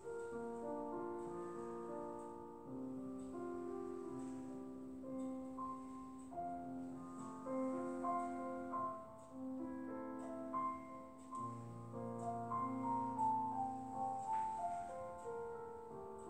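Background music: soft piano with long held notes.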